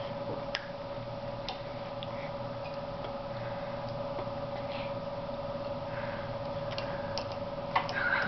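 Quiet room tone with a steady faint hum, broken by a few light clicks of a metal fork on a plate, with a couple more clicks near the end.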